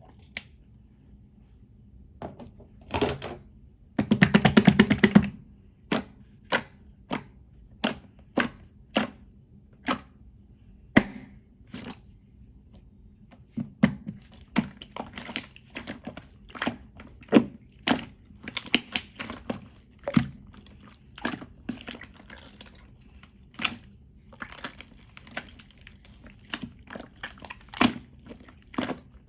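Clear slime being squeezed and poked by hand: a series of sharp wet clicks and pops as trapped air bursts, with a dense crackling stretch about four seconds in and the pops coming faster near the end.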